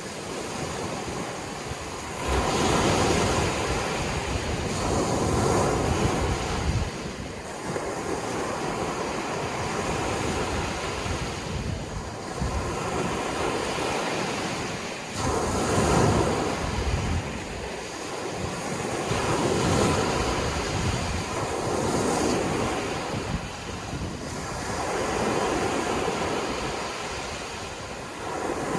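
Sea waves surging and breaking on the shore, swelling and easing in repeated surges a few seconds apart.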